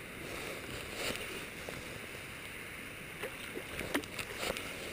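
Steady rush of flowing creek water, with a few faint, sharp clicks in the second half.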